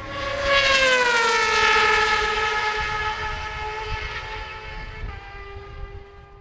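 Racing superbike passing at speed, its engine note falling in pitch as it goes by, then fading away.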